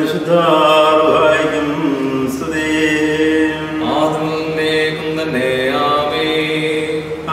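Liturgical prayer chanted in a man's voice, in a slow melody of long held notes with gliding steps between them.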